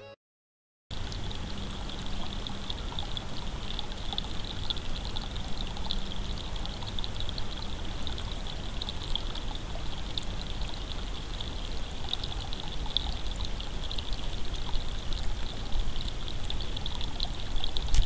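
Shallow rocky creek trickling over stones: a steady, fizzing water sound that starts about a second in, after a moment of silence.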